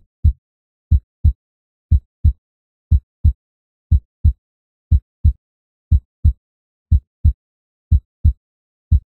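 A slow, steady heartbeat: paired low thumps (lub-dub) about a third of a second apart, one pair every second, with silence between.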